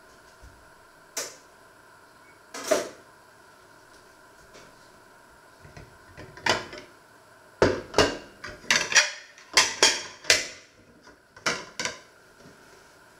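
Ceramic china plates clinking against each other and being set down on a wooden table: a few separate knocks, then a quick run of about a dozen clattering knocks in the second half.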